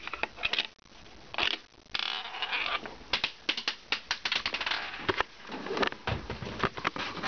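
Plastic clicking and knocking of a Lego brick coin-operated candy machine as a penny is pushed into its slot and its button is pressed. A dense run of quick clicks and rattles fills the second half.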